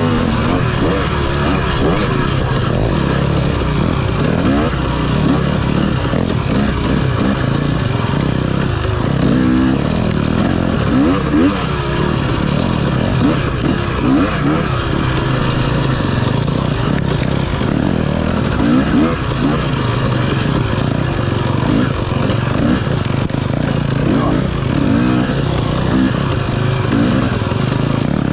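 KTM 250 dirt bike engine ridden hard through tight woods single track. The revs keep rising and falling as the throttle is opened and closed.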